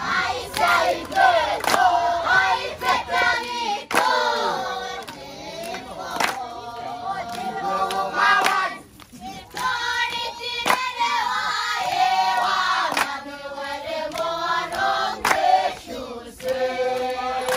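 Group of children singing a Christmas song together, with a few sharp claps.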